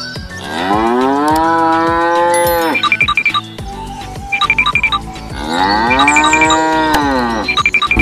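Two long cow moos, each about two seconds, rising and then falling in pitch. They are a dubbed sound effect for toy cows. Short high ringing notes sound between and after the moos.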